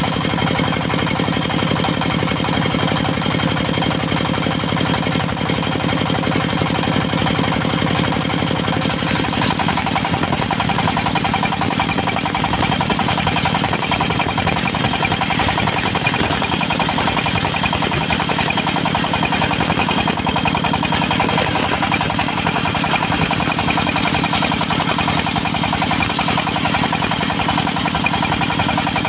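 Diesel engine driving a mobile circular-saw sawmill, running steadily. About nine seconds in the sound changes, with a hiss added above the engine, which then holds.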